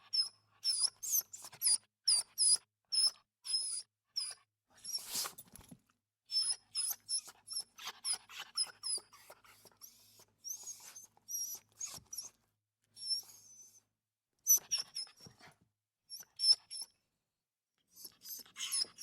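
Small dog whimpering: a long series of short, very high-pitched whines coming in quick runs with brief pauses, and a breathy sniff about five seconds in.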